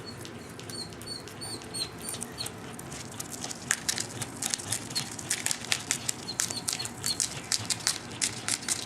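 Lovebirds chirping in quick series of short, high calls, with a burst of sharp clicks and rustles from about three and a half seconds in, as the birds handle nesting material.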